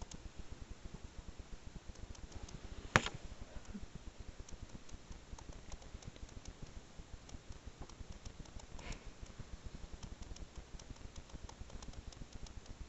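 Faint handling noise from a hand-held camera: scattered light clicks over a low rumble, with one sharp knock about three seconds in and a softer knock near nine seconds.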